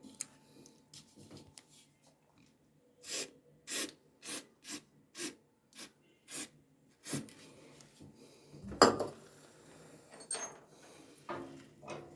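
Repeated scraping or rubbing strokes, about two a second, on a washing machine part during a bearing repair, followed by one loud knock.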